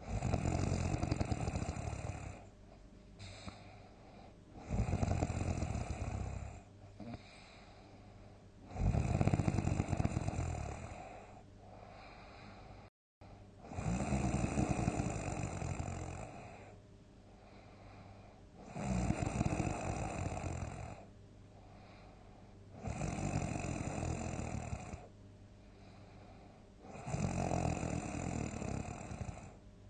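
A person snoring heavily: seven loud snores, one about every four seconds, each two to three seconds long, with quieter breathing between them. There is a brief dropout in the sound about thirteen seconds in.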